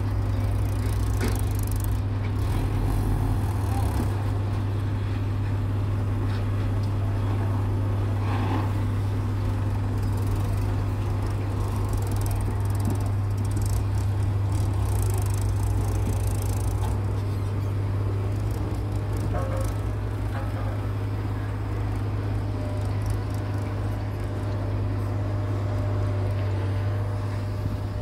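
Farm tractor's diesel engine running steadily under load as it hauls a trailer full of soil, a low even drone.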